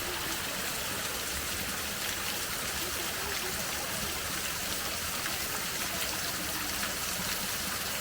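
Running water of a stream, a steady, even rush.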